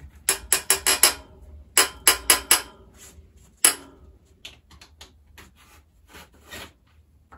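Sharp metallic taps and clinks of tools on bicycle parts: a quick run of five, then four, then a single louder one, followed by lighter ticks.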